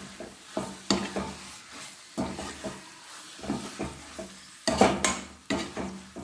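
Metal spoon scraping and knocking against a metal kadai as raw chicken pieces are stirred into a masala, with frying sizzle underneath. A run of irregular strokes, the loudest about five seconds in.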